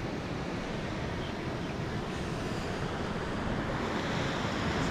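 Steady wind buffeting the microphone, mixed with the rush of ocean surf, growing slightly louder near the end.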